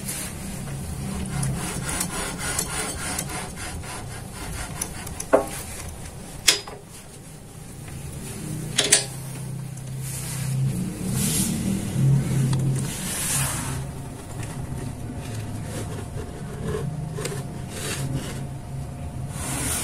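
Square hollow steel tube being shifted and set in a drill press vise: metal scraping and rubbing, with a few sharp knocks, over a steady low hum.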